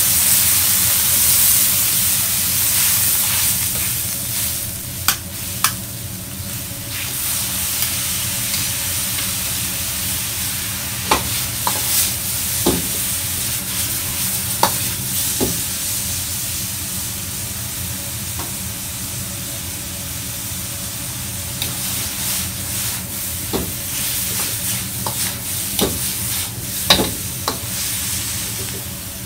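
Stir-fried moo shu pork sizzling in a black iron wok over a high gas flame. It hisses loudest at first, as bone broth hits the hot wok and steams, then eases. Every few seconds a metal ladle clanks sharply against the wok as the food is turned.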